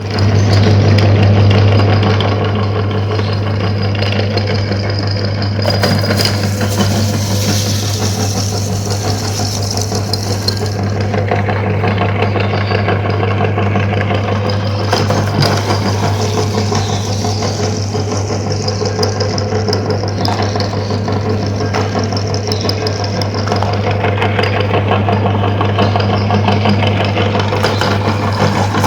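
Electric meat grinder running with a steady low motor hum and a crackly grinding noise over it, as it works through frozen ice pops.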